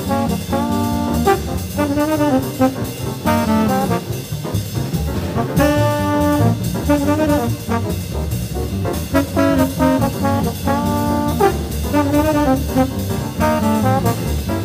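Jazz trombone playing fast, clean bebop lines over bass and drums, mixing quick runs with a few notes held about a second.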